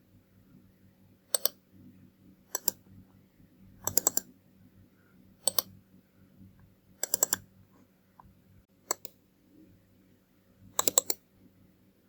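Computer mouse buttons clicking: single clicks and quick runs of two to four clicks, a group every one to two seconds, with a faint low hum underneath.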